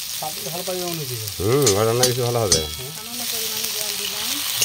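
Onion and spice paste frying in hot oil, a steady sizzle, with a spatula stirring and scraping the pan in a few sharp clicks around the middle. A man's voice sounds over it, loudest in the middle.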